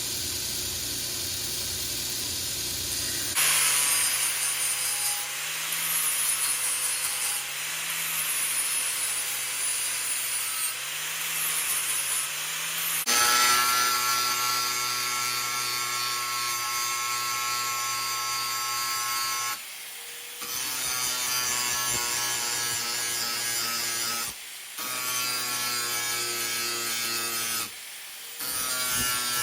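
An electric power tool running steadily under load with a whine and a gritty hiss, in several cut-together takes that break off abruptly a few times.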